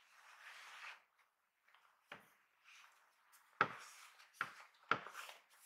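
Soft rustling of a thin protective wrapping sheet being handled on a laptop, with four soft knocks as it is handled, the loudest about three and a half seconds in.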